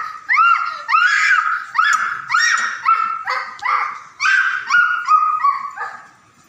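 An animal calling loudly over and over, about two calls a second, each call rising sharply and then holding its pitch; the calls stop shortly before the end.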